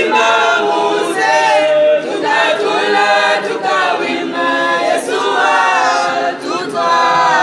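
A large group of voices singing together, choir-style, with male and female voices.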